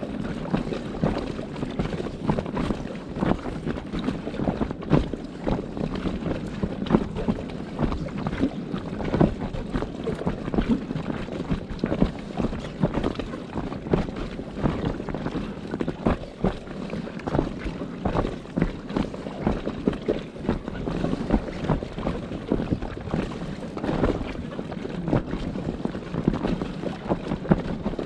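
Wind buffeting the microphone over water splashing and lapping around a kayak, with irregular short gusts and splashes throughout.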